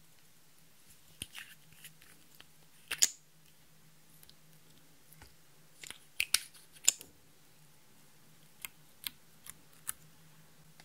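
Scattered sharp plastic clicks and taps as a small liquid-makeup tube and its applicator are handled and dabbed. The loudest click comes about three seconds in, with a cluster of them around six to seven seconds, over a faint steady low hum.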